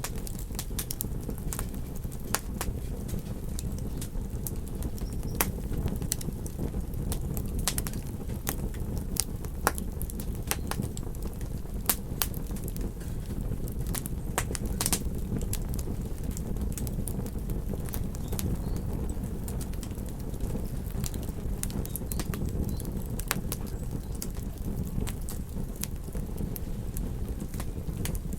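Campfire wood crackling and popping in irregular sharp snaps over a steady low rumble.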